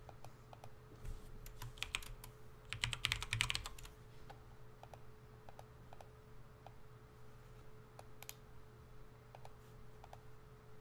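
Typing on a computer keyboard: a quick run of keystrokes about three seconds in, with scattered single clicks before and after.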